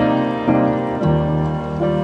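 Background instrumental music, with a new note or chord struck about every half second.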